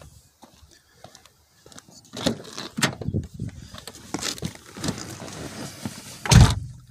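Handling noises of a 2010 Chevy Cobalt's driver's door and cabin as someone opens the door and climbs into the seat: a run of clicks, knocks and rustling, then one heavy thump near the end. The engine is off.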